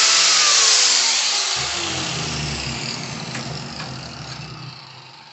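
Angle grinder with a sanding disc spinning down after being switched off: its whine falls steadily in pitch and fades away over a few seconds. A couple of light knocks come about three to four seconds in.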